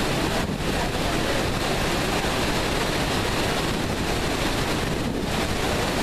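Steady roar of the Iguazu Falls' cascading water, a dense, even rush, with wind noise on the microphone.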